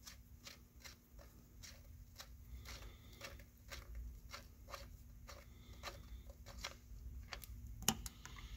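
Faint, irregular clicking, about two to three small clicks a second over a low hum, with one sharper click near the end.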